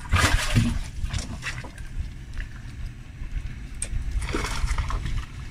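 A hooked barramundi splashing at the surface beside the boat while it is played in: a burst of splashing at the start and another about four seconds in, over a steady low rumble.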